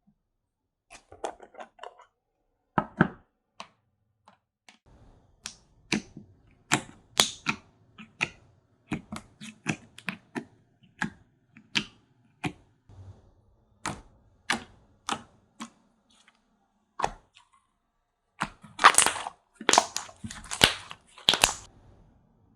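Slime being pressed and played with close to a pin microphone, giving sharp clicks and pops at irregular intervals, about one or two a second. Near the end it turns to a denser run of louder crackling squishes.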